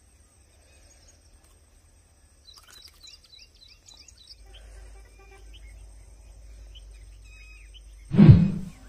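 Faint outdoor ambience with small birds chirping in a quick run of short calls about two and a half seconds in, over a faint steady low hum. Near the end a brief loud burst of sound cuts in.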